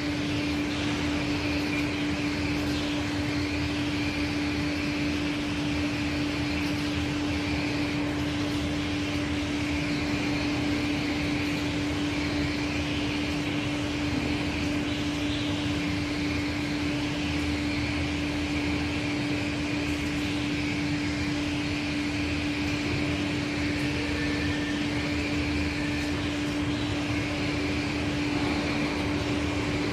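Aschersleben SZ 2000x1500x9000 guideway grinding machine (built 1988) running while grinding a workpiece: a steady hum with a constant hiss above it.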